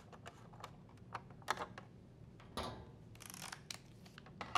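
Faint scattered clicks and light scraping from a 1/4-inch driver bit turning a screw back into the plastic control-board bracket of a washer.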